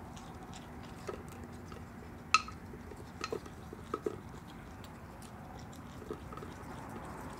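Virginia opossum eating pieces of an ice cream drumstick cone from a pet dish: scattered crunching clicks, with one sharp, ringing clink against the dish about two seconds in.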